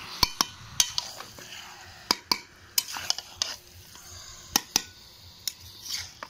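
A metal spatula stirring marinated chicken pieces in a large metal wok, clanking and scraping against the pan in about a dozen sharp knocks at irregular intervals, over a faint sizzle of frying.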